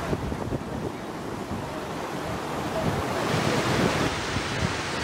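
Mountain stream rushing over boulders, a steady white-water roar, with wind buffeting the microphone in the first few seconds. About three seconds in the rush gets fuller and brighter.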